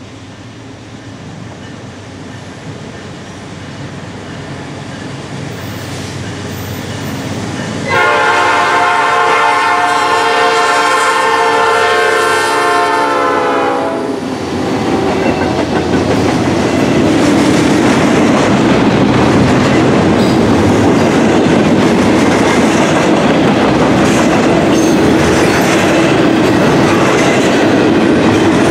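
Norfolk Southern GE D9-44CW diesel locomotives approach, growing steadily louder. About eight seconds in, the multi-note air horn sounds in one long blast of about six seconds. As the locomotives pass, the sound becomes the loud, steady rumble and wheel clatter of double-stack intermodal container cars rolling by.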